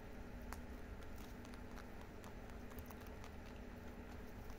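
Two lop-eared rabbits chewing and nibbling dry hay: faint, irregular crunching clicks over a low steady hum.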